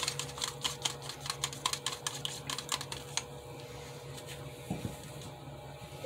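Wooden stir stick clicking and scraping against the inside of a plastic cup while thick metallic gold acrylic paint, thinned with Floetrol and water, is stirred: a quick run of clicks that stops about three seconds in.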